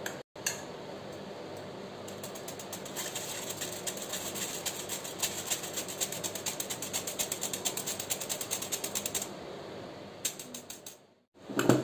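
Stainless steel mesh sieve rattling as flour and baking powder are sifted through it: a fast run of light metallic clicks starting about three seconds in and stopping near the end.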